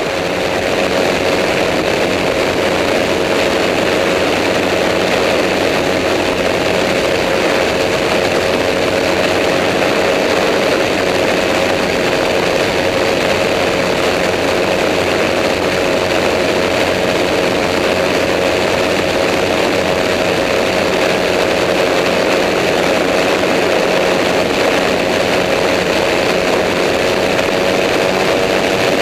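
The amphibious Cygnet trike's rear-mounted engine and propeller drone steadily in level cruise, the pitch shifting slightly near the end.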